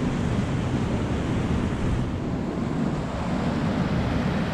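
River water pouring over a low dam and churning in the whitewater below, a loud, steady rush, with wind buffeting the microphone.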